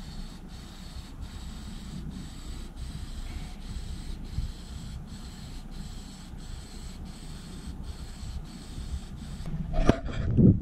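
Aerosol spray-paint can hissing steadily as black paint is sprayed onto a steel post, over low wind rumble. About ten seconds in, a few loud knocks and rustling take over.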